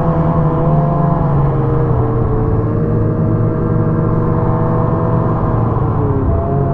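Ski-Doo snowmobile engine running under way at a fairly steady speed, its pitch easing down slightly about two seconds in, then dipping near the end and climbing again as the throttle is worked.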